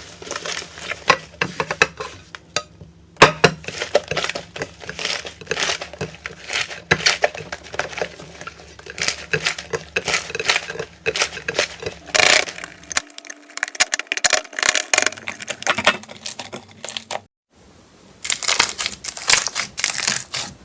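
Slime being squeezed, pressed and poked by hand, giving a rapid, irregular run of crackling clicks and pops. It stops for a moment just after 17 seconds, then resumes.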